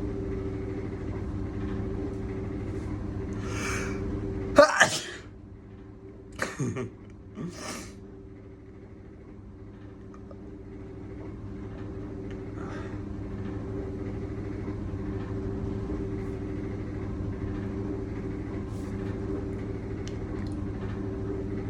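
A person sneezing once, loudly, about four to five seconds in, preceded by a breathy intake. Two shorter breathy bursts follow within the next three seconds. A steady droning hum runs underneath throughout.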